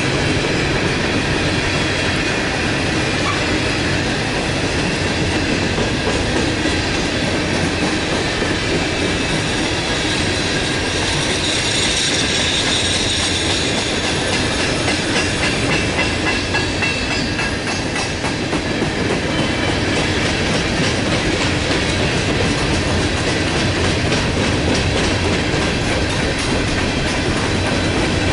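Empty open-top hopper cars of a freight train rolling steadily past, their wheels clicking and clacking over the rail joints, with a high wheel squeal rising and fading around the middle.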